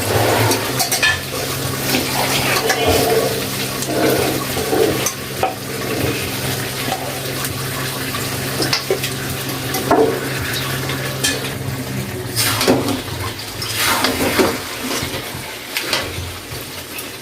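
Washed, still-wet chicken pieces going into a hot wok of fried spice paste, sizzling and spluttering, with pieces and a utensil clattering against the pan as they are stirred in.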